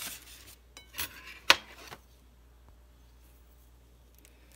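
Aluminum foil rustling and a fork working into a foil-wrapped sweet potato baked in coals: a few short rustles in the first two seconds, with one sharp click about a second and a half in.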